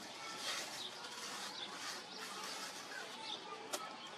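Wet mud being pressed and smoothed over a roof by hand, a smearing, scraping hiss that comes and goes, with small birds chirping throughout. A single sharp click near the end.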